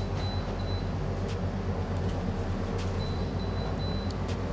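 Steady low machine hum, with a few faint clicks.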